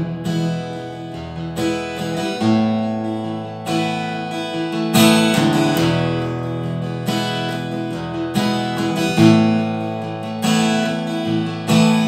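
Acoustic guitar strummed without singing, sustained chords ringing and changing every couple of seconds.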